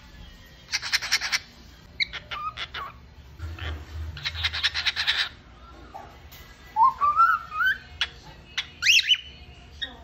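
Cockatiel calling: two bursts of rapid, harsh chattering with short whistled notes between them. In the last few seconds it gives a run of rising whistled notes.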